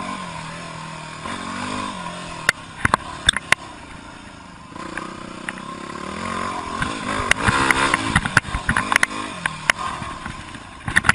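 An engine running and revving up and down, with a few sharp knocks a few seconds in.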